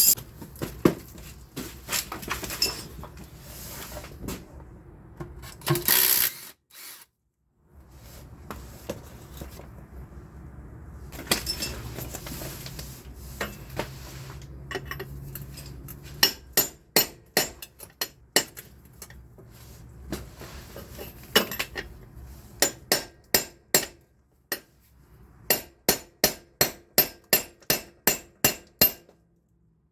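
Hammer blows on steel while working a front CV axle free, in two quick runs of sharp strikes, about two to three a second, in the second half. Scattered knocks and tool clinks come before them.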